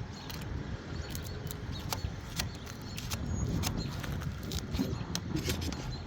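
Irregular sharp clicks and knocks of work on an asphalt-shingle roof, over a steady low rumble.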